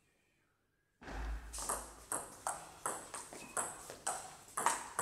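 Table tennis rally: the ball striking bats and table in sharp, ringing pocks, about two to three a second, starting about a second in.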